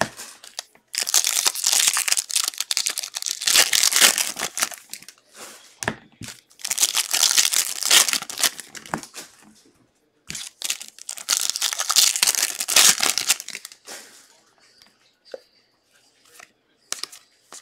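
Plastic wrapper of a football card pack crinkling and tearing as hands open it, in several long bursts, then only faint light clicks of handling near the end.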